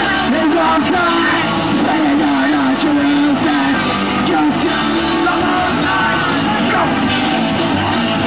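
Hardcore punk band playing live: distorted electric guitar, drums and shouted vocals, loud and continuous.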